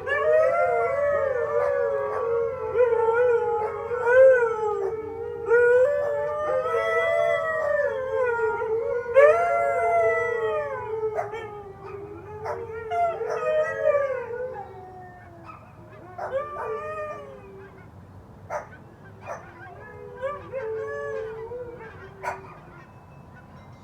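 Huskies howling together: several long, wavering howls overlapping, with sharp yips in between. After about 15 seconds the chorus thins to shorter, quieter calls and yips.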